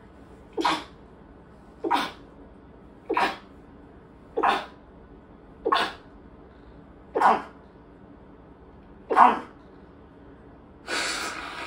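A woman sneezing seven times in quick succession, about one sneeze every second and a half, an allergy sneezing fit. Near the end comes a longer, breathy blast into a tissue held at her nose.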